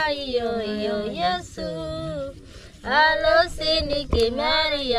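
A woman's voice singing unaccompanied in held, gliding notes, with a short pause about halfway through.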